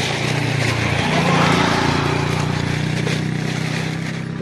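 Motorcycle engine running steadily, growing louder about a second in and fading toward the end.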